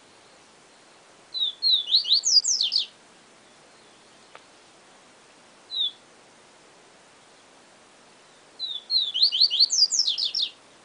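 Papa-capim seedeater (Sporophila) singing its 'siu siu professor' song: two fast phrases of quick, falling whistled notes about seven seconds apart, with a single short note between them.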